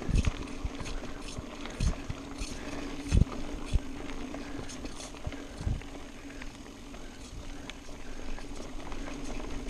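Mountain bike rolling fast down a dirt singletrack: knobby tyres rolling over dirt with a steady hum under it, the chain and frame rattling with sharp ticks, and several low thumps as the bike hits bumps in the first six seconds.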